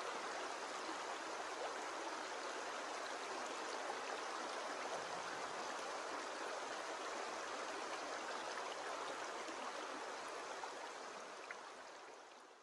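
Shallow stream running over stones: a steady babbling rush of water that fades out near the end.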